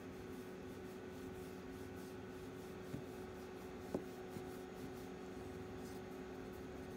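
Fingers scratching a cat's fur under its chin and along its cheek, a faint rubbing and scratching over a steady electrical hum, with two small clicks about three and four seconds in.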